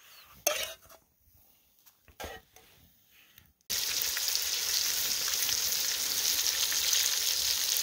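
Venison tenderloin sizzling in a cast-iron skillet: a steady frying hiss that starts suddenly about three and a half seconds in. Before it, only a couple of brief soft knocks.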